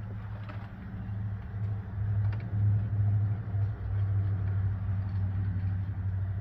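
Steady low motor hum, a little louder in the middle, with a few faint ticks.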